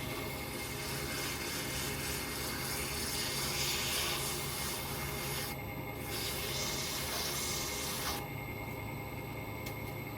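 Wood lathe running with a steady hum while abrasive paper rubs against the spinning plum-wood pen blank. The rubbing stops briefly a little past halfway and mostly stops about two seconds before the end, leaving the lathe's hum.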